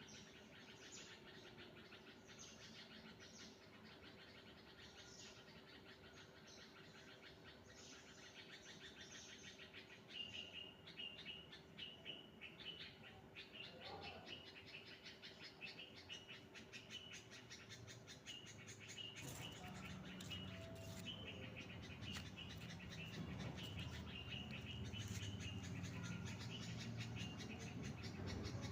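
Faint chirping of small birds: many quick, high chirps that grow busier about a third of the way in, over a low steady hum, with a low rumble joining later.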